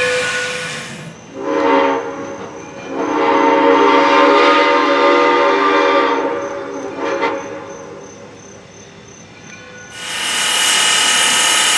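Locomotive whistle sounding a chord of several tones: a short blast, then a long one of about three seconds. About ten seconds in, a loud steady hiss of steam venting from the top of a steam locomotive's boiler takes over.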